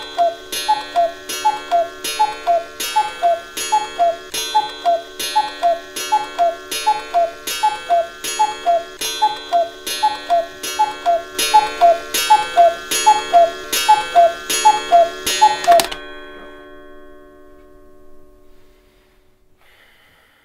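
Cuckoo clock calling over and over, about two cuckoos a second, each a falling two-note call with a click of the mechanism. The calling cuts off suddenly near the end, leaving a ringing tone that fades away.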